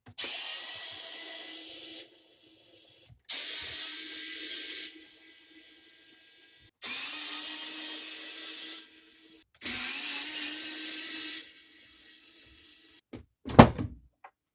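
A cordless drill/driver run four times in bursts of about two seconds, each dropping to a quieter whir before stopping, typical of backing screws out of an amp's back panel. A short, loud thump comes near the end.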